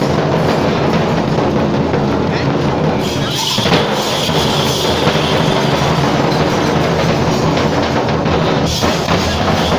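Kerala temple-festival drumming, loud and continuous, with no break in the beat.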